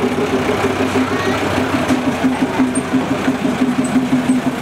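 Akasawa forest railway's small diesel locomotive idling with a steady, pulsing hum while the train stands waiting to depart.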